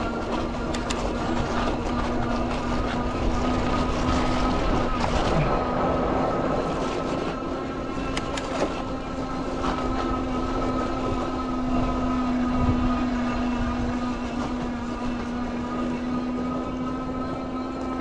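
Aventon Aventure fat-tire e-bike's rear hub motor giving a steady whine under power on a climb, over the rushing noise of the fat tyres rolling through fresh snow and wind. A few light clicks sound through it.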